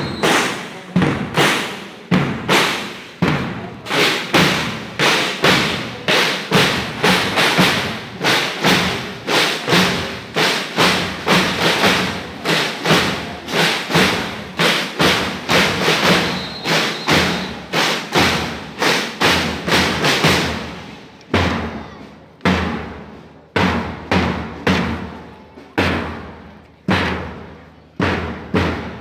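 School marching drum band (banda lisa) playing snare and bass drums in a steady marching cadence, about two strikes a second. About 21 seconds in the playing thins to sparser, lower drum strikes.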